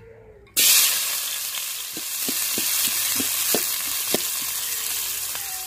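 Chopped onions dropped into hot oil in a metal pan: a sudden loud sizzle starts about half a second in and keeps on as a spoon stirs them, with a few light knocks of the spoon against the pan.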